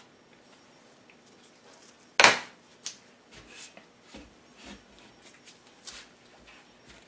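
Hands working tape onto 3D-printed plastic parts. A sharp, loud noise comes about two seconds in, then a string of soft clicks and rustles.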